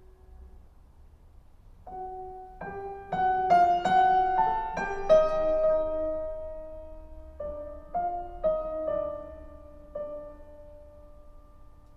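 Solo piano recording played back through Yamaha NS-3000 bookshelf speakers: a quiet phrase builds into loud struck chords about three to five seconds in and rings down. A second phrase near eight seconds swells and fades, showing the wide range from very soft to loud playing.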